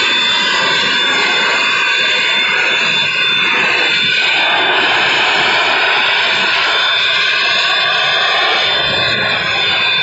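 Handheld vacuum abrasive-blasting head stripping rust from a steel beam: a steady, loud hiss of compressed air and abrasive grit, with a thin high whine over it.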